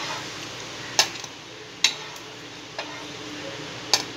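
Metal spatula clicking against the nonstick pan and plate as toasted bread slices are lifted off: four sharp taps, roughly a second apart, over a faint steady sizzle from the hot pan.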